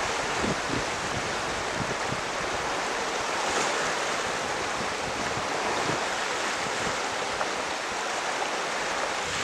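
Steady rush of flowing water, with wind buffeting the microphone in the low end.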